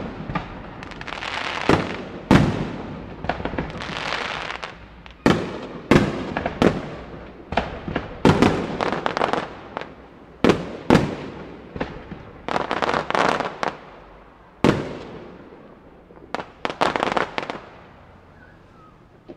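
Aerial firework display: shells bursting in quick succession, a string of sharp bangs with crackling between them. The bangs thin out and stop near the end.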